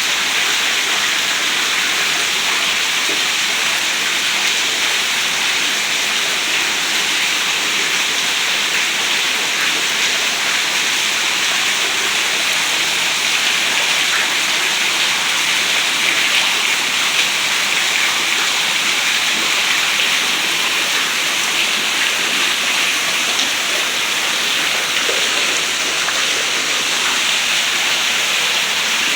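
Steady, heavy rain falling, an even wash of noise with no let-up.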